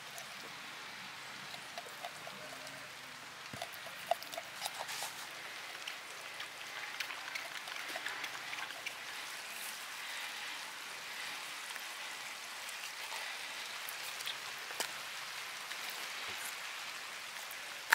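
Small knife scoring a whole raw chicken: faint scattered clicks and soft squishing cuts over a steady hiss.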